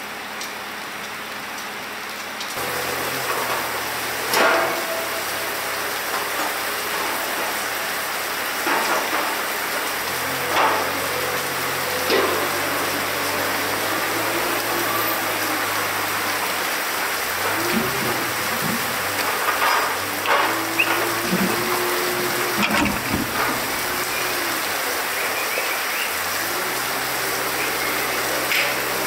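Steady rain on a barn roof, with occasional sharp knocks. A few short wavering tones come about halfway through.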